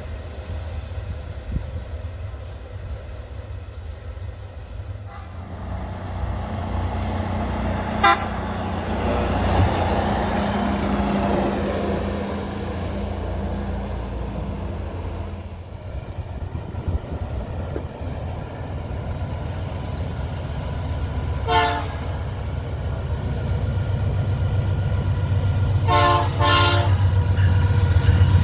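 Low diesel rumble of trains, with short horn blasts, one around a third of the way in and one past two thirds. Near the end come two quick horn toots, and the rumble grows as a Vale GE Dash 9 diesel locomotive approaches.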